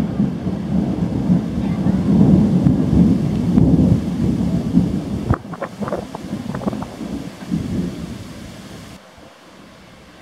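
Rolling thunder rumbling deep and loud, then dying away through the second half with a few sharp crackles, fading to a quiet hush near the end.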